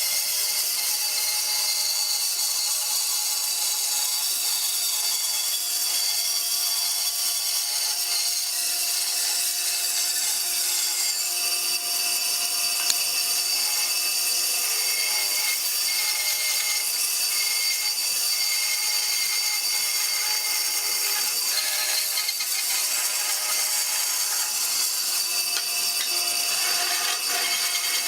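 A power tool working wood, running steadily without a break, its sound mostly a high, even noise.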